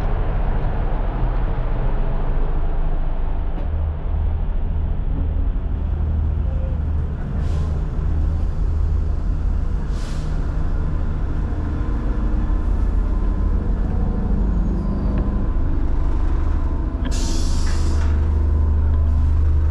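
Steady low drone of a diesel train's engine and air conditioning heard inside the passenger carriage, with short hisses of air about seven and ten seconds in and a longer, brighter hiss of about a second near seventeen seconds.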